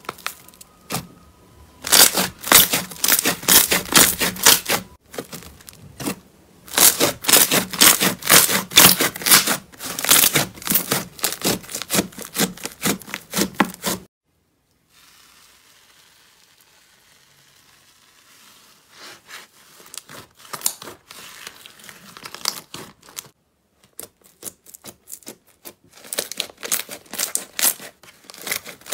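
Thick slime being poked and squeezed by hand, giving dense runs of rapid crackling and popping clicks. About halfway through the crackling cuts off suddenly to a faint, quiet stretch, then picks up again near the end.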